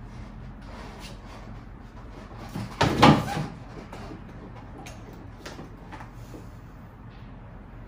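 A clattering thud about three seconds in as a Suzuki RM-Z250 dirt bike is tipped off the back of a pickup truck's tailgate and lowered onto the driveway, followed by a few light knocks.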